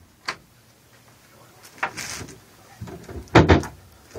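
Wooden closet door being opened by hand: a click of the handle, then a few knocks and rattles as the door swings and bumps.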